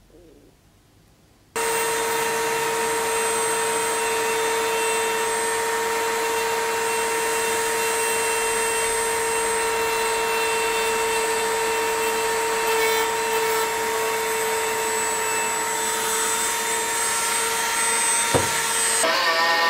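A hand-held rotary tool with a small burr grinding into a metal sword pommel: its motor switches on about one and a half seconds in and runs as a steady high whine. The pitch dips briefly near the end.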